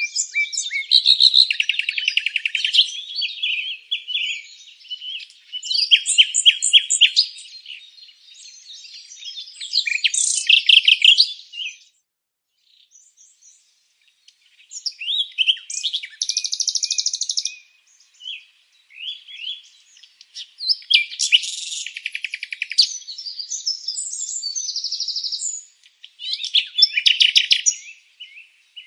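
Songbirds singing and chirping in quick trilled phrases, several overlapping, with a short lull about halfway through.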